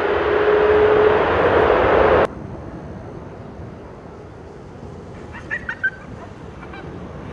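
Boeing 747-8F's four GEnx turbofan engines roaring on the landing rollout, with a steady droning tone in the roar; the sound cuts off suddenly about two seconds in. A quieter outdoor background follows, with a few short, high chirping calls near the end.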